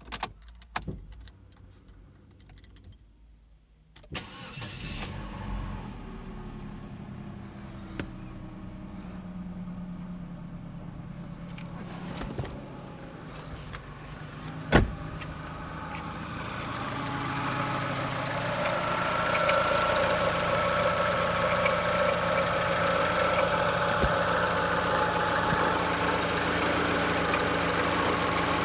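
A few clicks, then a Daewoo/Opel E-Tec II 16-valve four-cylinder engine starts about four seconds in and settles into a steady idle, with a sharp click partway through. It then grows louder, with a high whine over the running, as the scraping noise from the timing-belt side that the owner reports is listened for.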